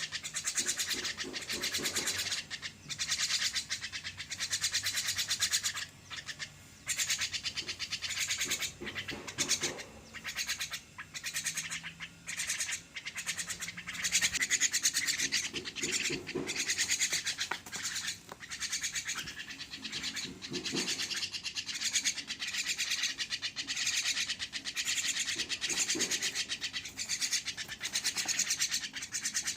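Javan myna giving harsh, rasping calls in long runs broken by short pauses, while being fed.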